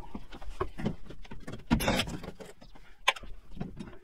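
Irregular knocks, clicks and rustles of hands and tools working on the bare panelling of a van's cargo area, with a louder scraping clatter about two seconds in and a sharp knock about three seconds in.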